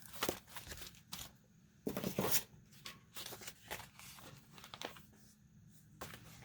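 Paper cards and envelopes being handled: a run of short rustles and crinkles, with a louder, longer rustle about two seconds in.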